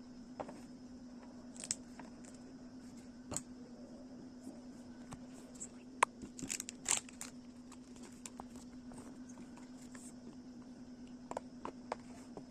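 Scattered light clicks and taps from handling a blind-box toy and its plastic packaging, the sharpest about six seconds in with a cluster just after and a few more near the end, over a steady low hum.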